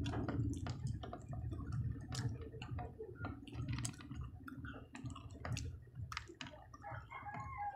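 Irregular light clicks of wooden chopsticks tapping and nudging candy-coated peanut M&M's on a plate as they try to grip one.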